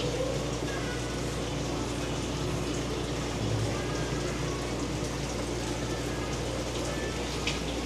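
Steady running and splashing water with a constant low hum: aquarium filters and pumps running in a fish store.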